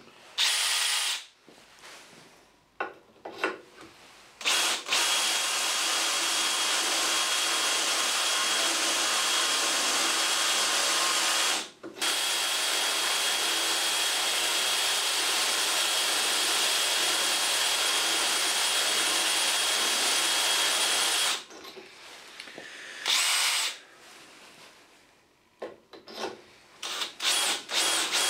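Cordless drill driving a diamond-grit holesaw that grinds slowly through a broken hardened-steel tap, a steady high-pitched motor whine with grinding. It starts with a few short squeezes of the trigger, then two long runs of about seven and nine seconds with a brief stop between, and ends in a few short blips.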